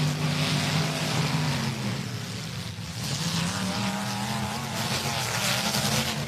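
Demolition derby cars' engines running together in the arena, with revs rising and falling in the second half.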